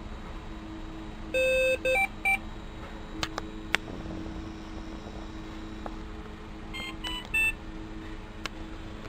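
TruSat pulse oximeter sounding its low-battery alarm: two groups of three short beeps of differing pitch, about five seconds apart, the first beep of the first group held longer. A steady low hum runs underneath.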